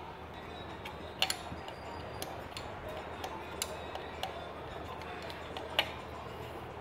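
About half a dozen sharp, light metallic clicks and taps, spaced irregularly, as bolts and hardware are handled and fitted on a Suzuki 140 outboard's lower unit housing during reassembly. The loudest click comes near the end.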